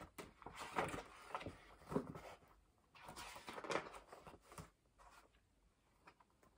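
Faint rustling and flapping of paper as the pages of a thin picture book are turned by hand, in a few short rustles.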